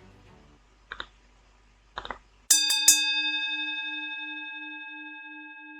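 The tail of background music dies away, then a bell-like chime is struck twice in quick succession, its tone ringing on and slowly fading with a gentle pulsing waver.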